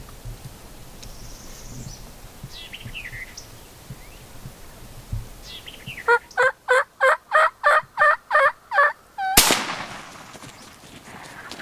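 A run of about nine loud turkey yelps, roughly three a second, then a single sharp .410 shotgun shot with a short echo trailing after it.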